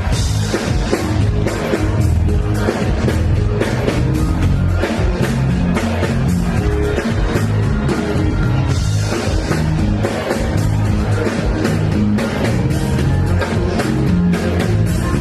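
An afrobeats song performed live on stage through a loud sound system, with a steady drum beat and heavy bass.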